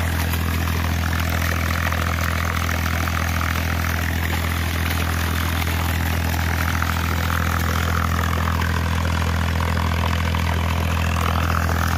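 Water gushing from a borewell's discharge pipe and splashing onto the ground, over the steady hum of an engine running the alternator that powers the submersible pump. This is a test run to check the borewell's yield.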